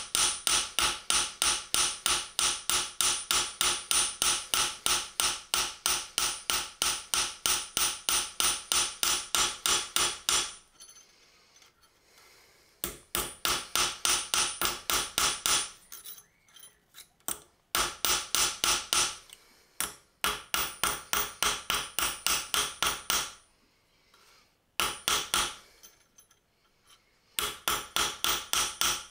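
Hand hammer striking a strip of 18ct gold on a steel anvil in quick, even blows, about four a second, texturing the metal. A steady run of about ten seconds is followed by shorter bursts of blows with brief pauses between.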